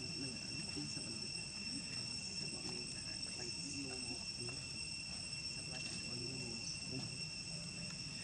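A steady chorus of insects: several unbroken, high-pitched drones, each held on one pitch.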